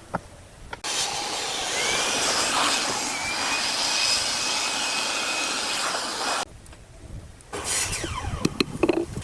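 A power tool running with a steady, noisy whoosh that starts abruptly about a second in and cuts off suddenly after about five and a half seconds, followed by a few knocks.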